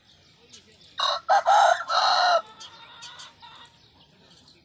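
Aseel rooster crowing once, about a second in. The crow is about a second and a half long and breaks into three parts: a short opening note and two longer ones, the last held and then cut off.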